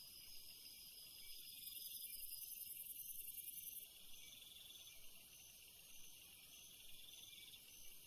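Faint, high-pitched insect chorus: a steady shrill trill with a short chirp repeating about every two-thirds of a second from midway on.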